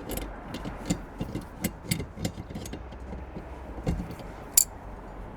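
Irregular small metallic clicks and knocks of a gas regulator being handled and screwed onto a gas bottle's left-hand thread, with one sharper click about four and a half seconds in.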